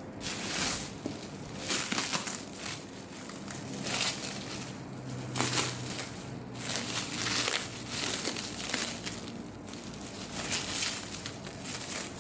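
Packing material being crumpled and rustled by hand, in irregular crinkling bursts every second or two.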